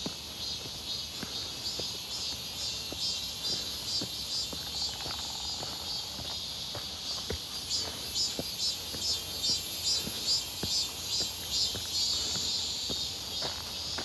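Cicadas singing in chorus, a high, pulsing buzz that grows louder a little past the middle. Soft footsteps on a rocky dirt trail sound underneath.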